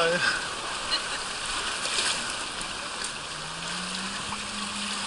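Fast-flowing water rushing around an inflatable tube riding down a water-slide channel, a steady rush with a couple of small splashes.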